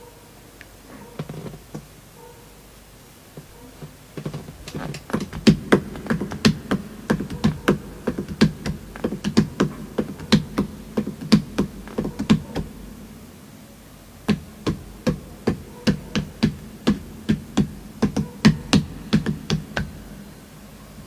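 A steady run of sharp, low knocks, about three a second, with a brief pause partway through, like a drum beat or rhythmic tapping.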